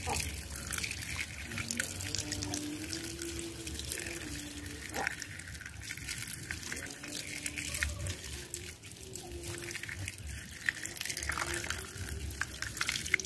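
A stream of running water pouring and splashing over a small plastic toy truck held in a hand, rinsing mud off it.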